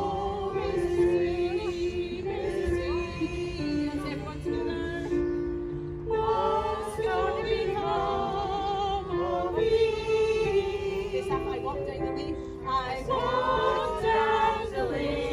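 A small mixed choir of men and women singing together, with held notes that waver in vibrato.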